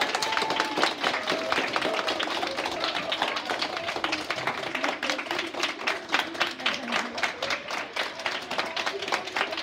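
A class of schoolchildren and teachers applauding and cheering to celebrate a win. Shouts are heard in the first second, and the clapping grows denser after about five seconds.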